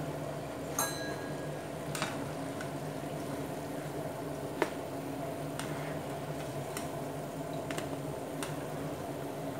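Rice vadas deep-frying in hot oil with a steady sizzle, and a few light clicks of a wire spider strainer against the pan as they are lifted out.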